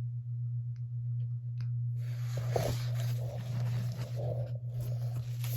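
Paper and envelopes rustling and crinkling as they are handled, after a few faint clicks, starting about two seconds in, over a steady low electrical hum.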